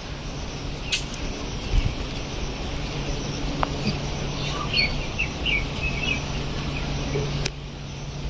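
A small bird chirping a quick series of short notes about halfway through, over a steady low hum. A sharp click about a second in and another near the end.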